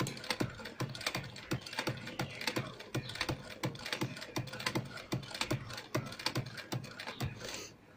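Sewing machine stitching slowly, its needle mechanism clicking about five times a second as it sews a narrow rolled pico hem; it stops near the end.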